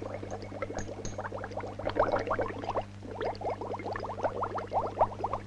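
Carbon dioxide bubbling through water in a glass beaker: a rapid, irregular stream of small bubbling blips, each a short rising note, over a steady low mains hum.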